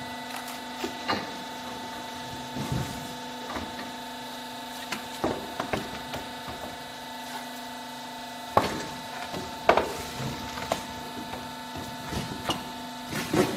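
Wooden frame rails knocking and clattering as they are set into a hydraulic A-frame clamping press, with a few sharper wooden knocks around the middle. A steady machine hum runs underneath.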